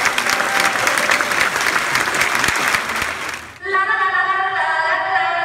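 Audience applauding, the clapping dying away about three seconds in. Tango music then starts suddenly, with sustained melodic notes.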